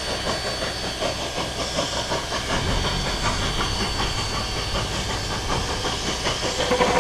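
Steady hiss of steam in the cab of a narrow-gauge steam locomotive, with a thin, steady high-pitched tone above it.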